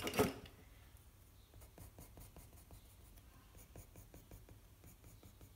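Pencil scratching on watercolour paper in quick short strokes, about four or five a second, while cross-hatching shading; faint. A short knock right at the start.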